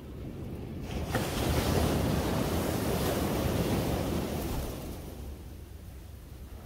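Sea waves breaking and washing up a sandy beach: the hiss swells about a second in, holds for a few seconds, then fades. Wind rumbles on the microphone underneath.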